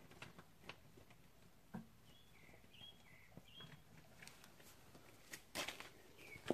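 Faint scattered light taps and scuffs of a kitten playing under an upturned plastic bucket on a concrete floor, with a louder knock about five and a half seconds in. A small bird chirps briefly several times in the middle.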